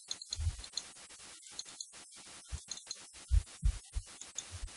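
Computer mouse being moved and clicked: faint small clicks and about half a dozen soft low thumps at irregular intervals.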